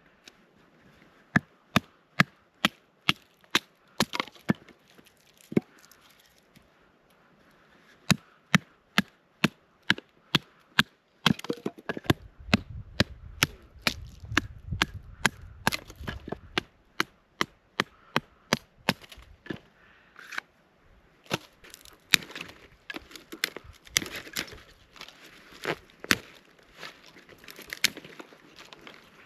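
Wood being chopped with a blade: repeated sharp strikes, about two a second in runs with short pauses, and a brief low rumble near the middle.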